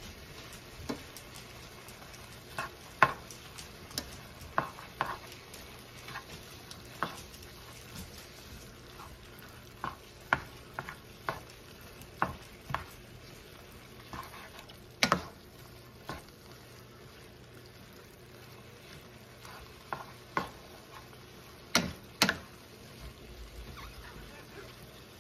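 Beef bulgogi and onions frying in a stainless steel skillet with a low, steady sizzle while being stirred with a slotted spoon. The spoon knocks and scrapes against the pan in irregular sharp clacks, the loudest coming about two-thirds of the way through and near the end.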